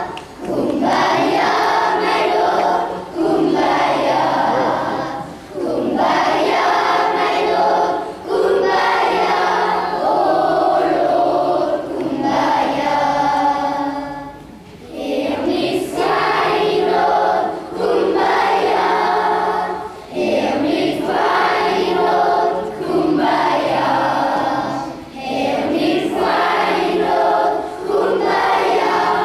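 Children's choir singing, in phrases a couple of seconds long with short breaks between them and a brief pause about halfway through.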